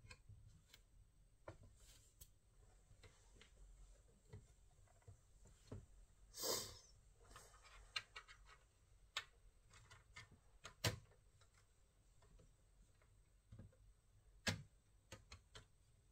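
Quiet handling noise from working on a laptop: scattered small clicks and knocks, with a brief scrape about six and a half seconds in.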